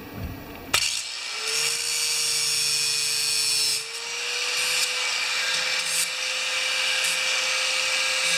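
Electric grinder grinding down a fresh weld: a steady motor whine under a harsh grinding hiss, starting abruptly about a second in, with a brief dip about four seconds in.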